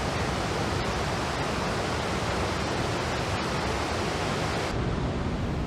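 Waterfall on the Falling Water River, a steady loud rush of water running high after heavy rain. The highest hiss drops a little about five seconds in.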